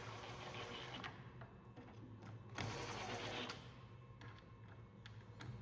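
Faint handling sounds of an oar being set into an oar jig and its clamps being worked: light clicks, scrapes and rubbing, a little louder about halfway through, over a steady low hum.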